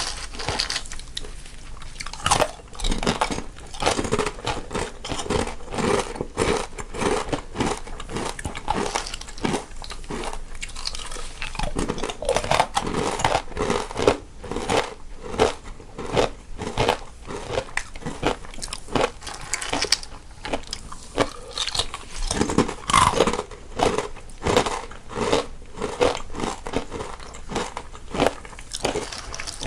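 Two people crunching and chewing crisp snacks, one on the left and one on the right: a dense, continuous run of short sharp bites and crunches, several a second.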